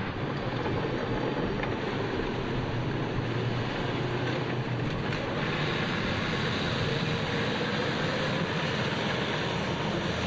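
Large two-section articulated tracked all-terrain vehicle driving: steady engine and track noise, a little brighter after about five seconds.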